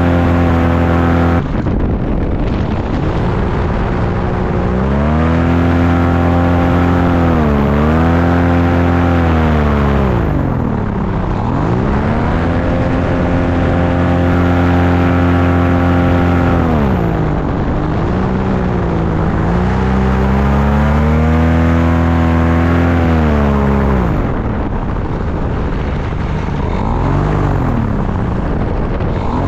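Paramotor engine and propeller running hard in flight with wind rushing past. The engine note dips and climbs again several times as the throttle is eased and reopened, then settles to a lower note near the end.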